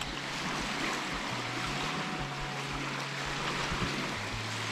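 Steady wind rustling through the trees, mixed with small waves lapping on the loch shore.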